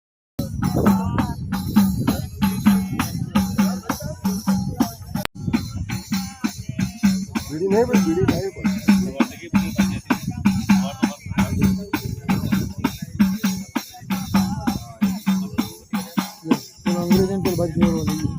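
Music with a steady, even drum beat and jingling percussion, with a voice singing now and then.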